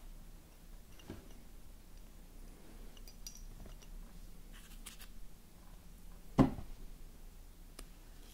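Wooden Honiton lace bobbins clicking against each other as they are handled over a lace pillow: a few light, scattered clicks and one louder knock about six seconds in.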